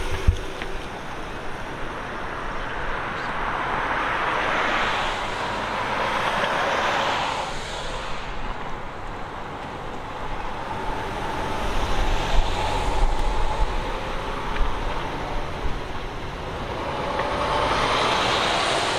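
Road traffic passing on a city street: several vehicles drive by one after another, each a swell of tyre and engine noise that rises and fades. There is a heavier low rumble in the middle and another loud pass near the end.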